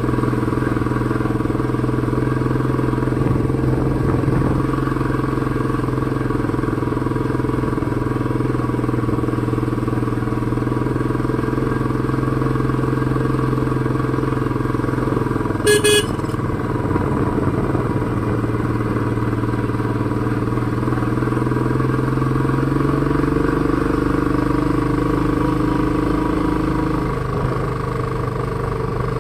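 Motorcycle engine running steadily while riding, with road and wind noise. A brief sharp sound about halfway through, and the engine note drops near the end.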